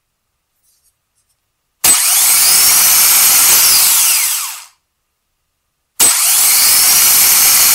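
Hyundai car starter motor run on the bench off 12 volts, twice. Each run starts with a sharp click and the motor spins freely with a loud, high-pitched whir. The first run lasts about three seconds, then winds down. The second starts about six seconds in.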